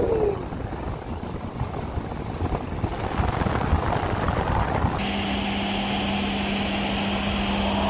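Wahoo Headwind smart fan running at its top speed setting, a steady rush of air buffeting the microphone. About five seconds in the sound changes abruptly, and a steady low hum and a higher hiss join the rush.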